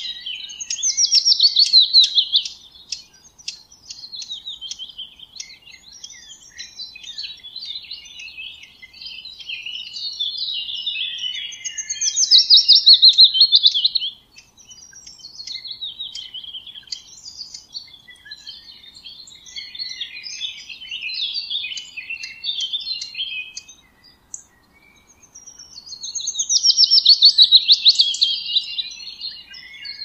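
Songbirds singing. A loud, high, descending trilled song about two seconds long comes three times, roughly every thirteen seconds, with softer chirps and twitters from other birds in between.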